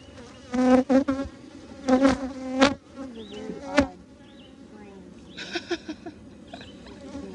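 Honeybees buzzing around an open hive, a steady hum with bees passing close by several times in the first four seconds, each pass a loud swell of buzzing.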